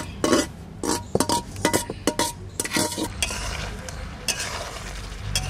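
A flat metal spatula clanking and scraping against an iron kadai as chicken and potatoes are stirred, with a sizzle of frying. The strikes come quick and irregular in the first three seconds, some ringing briefly, then give way to a steadier sizzle and scrape.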